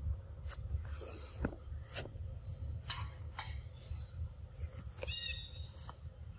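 A macaque gives a short, high squeaky call about five seconds in, with a fainter call a couple of seconds earlier, over a steady low rumble and scattered light clicks and rustles.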